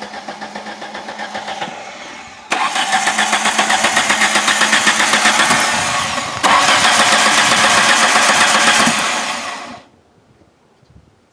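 An engine being cranked over by its starter without catching: an even chugging of about four to five beats a second, getting louder in two sudden steps and stopping abruptly near the end. The owner puts the failure to start down to the ignition timing being set to the wrong marks.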